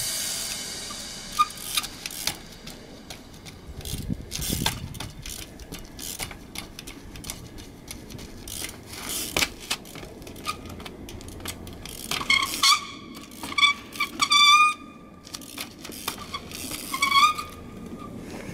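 Trials bike hopping across sandstone blocks: sharp knocks and rattles as the tyres and frame land on rock. Past the middle come a few short high-pitched squeals from its brakes.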